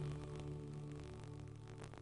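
Slow ambient background music with held notes, fading out.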